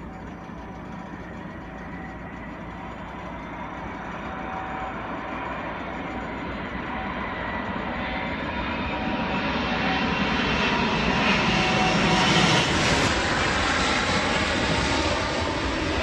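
Fixed-wing aircraft engine noise with a faint steady whine, building gradually louder as the plane nears and reaching its loudest about three-quarters of the way through.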